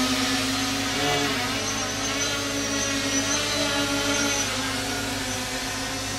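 Four Parkzone 480 960kv brushless motors spinning the propellers of a hovering H-frame quadcopter, a steady propeller whine that wavers a little in pitch and grows slightly quieter toward the end.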